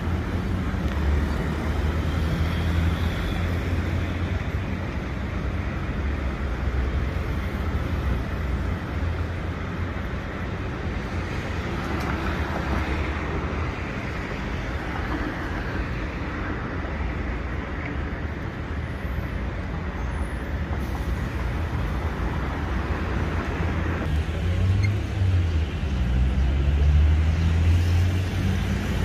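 Steady rumble of passing road traffic, with low engine noise that swells and fades.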